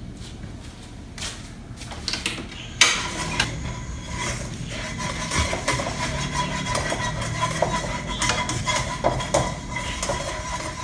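A spatula knocking and scraping around an empty nonstick wok. About three seconds in there is a sharp click, and a steady rushing hum from the gas burner heating the wok runs on under the scraping.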